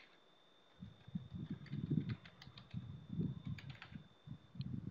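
Typing on a computer keyboard: a quick, uneven run of keystrokes starting about a second in, heard as dull taps.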